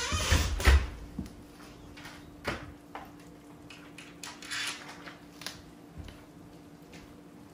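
A door thudding shut, then a series of metallic clicks and short rattles as a door chain lock is slid into its track and fastened.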